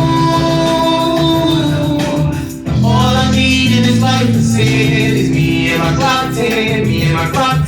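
Music: the intro of a hip-hop song, a bass-heavy beat with a sung vocal line. The beat drops out briefly about two and a half seconds in.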